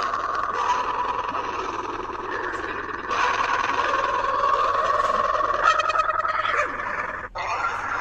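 A drawn-out, heavily distorted sneeze sound effect: a continuous rough, hissy tone that grows louder about three seconds in and cuts out briefly near the end.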